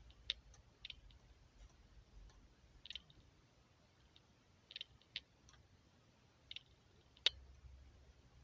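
Sparse, light clicks and taps, about eight at irregular intervals, with a sharper click near the end: the parts of an Ares L85A3 airsoft rifle being handled.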